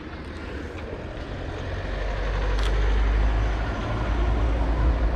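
A motor vehicle approaching close by on the street: a low engine rumble and road noise that grow louder through the first two seconds and stay loud.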